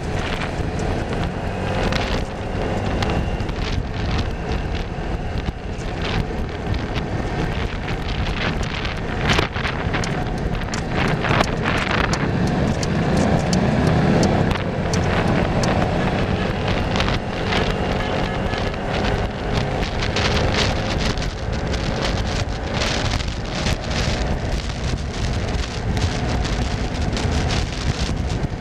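Steady wind buffeting the microphone over vehicle and road noise, with crackles throughout and a faint whine drifting in pitch through the middle.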